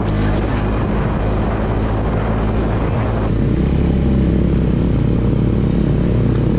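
Suzuki Gixxer 250's single-cylinder engine running at steady speed under a hiss of wind and road noise. About three seconds in the hiss drops away abruptly and the low engine note grows stronger.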